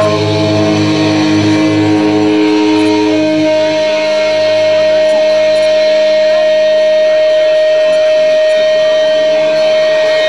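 Live rock band letting a song ring out. The chord and bass sustain and fade away over several seconds, while an electric guitar turned to its amplifier holds one loud, steady feedback tone.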